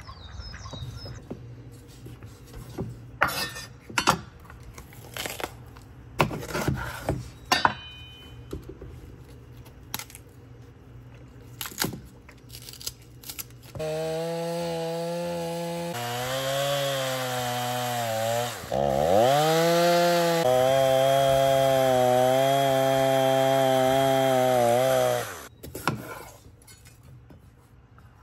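Stihl two-stroke chainsaw running for about eleven seconds as it cuts into a log, its pitch dipping sharply and recovering midway through. Before it there is a scattering of sharp clicks and knocks.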